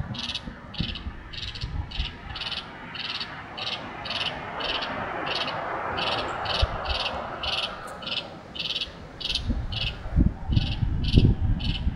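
A small animal calling in a steady series of short high chirps, about three a second, with a few low thumps near the end.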